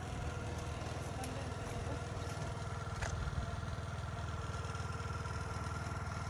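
Motorcycle engine running steadily at an even speed, with a few faint clicks.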